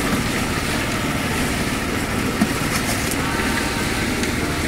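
A small engine running steadily, driving machinery for a concrete pour, with a single light knock about two and a half seconds in.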